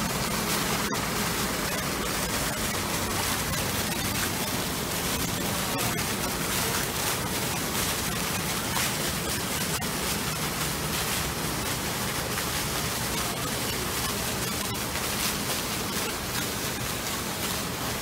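Falling water rushing steadily, a dense even hiss with no breaks.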